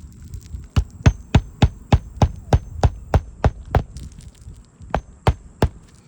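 Hammer blows on a shingle roof: a quick, even run of about a dozen sharp strikes, about three a second, then three more after a short pause, over a steady low rumble.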